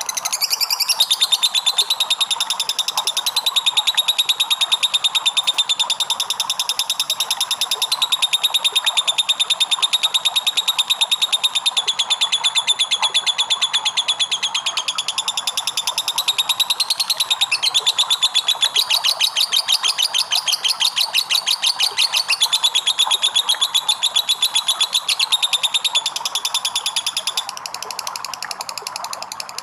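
Lovebird singing its long 'ngekek': a high-pitched chattering trill of rapid, evenly repeated notes held on and on, changing its pattern about halfway and softening near the end.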